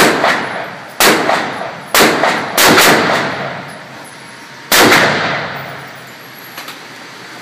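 Five single shots from an M4 carbine fired semi-automatically. The first four come about a second apart or less and the last follows after a two-second pause. Each shot trails off with an echoing tail.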